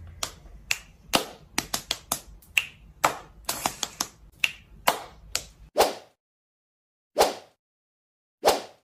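A run of sharp snaps at about three a second for six seconds, then two single snaps more than a second apart.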